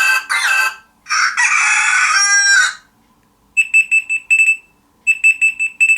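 BQ Aquaris 4 smartphone playing its alarm tones through its speaker. First a recorded rooster crowing, in short calls and then one longer call that falls in pitch at the end. After a short gap comes a different tone: rapid high electronic beeps in two quick bursts about a second and a half apart.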